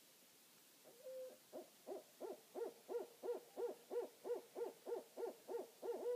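Owl calling: a short single note, then a rhythmic series of about fifteen rising-and-falling hoots, roughly three a second, growing louder. A falling whinny starts right at the end.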